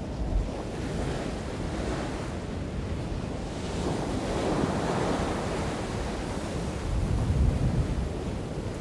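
Waves and rushing sea water under a steady wind, with gusts buffeting the microphone in low rumbles, most strongly about seven seconds in.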